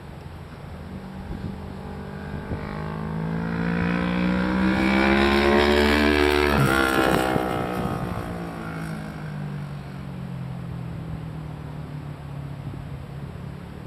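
A motorcycle's engine passing at speed on a race track. It grows louder as the bike approaches, drops sharply in pitch as it goes by about six and a half seconds in, then fades away.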